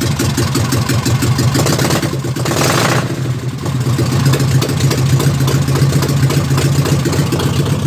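Volkswagen Fusca (Beetle) air-cooled flat-four running with its exhaust removed: a loud, raw open-pipe idle with a steady rapid pulse. A brief hissing noise comes in about two and a half seconds in.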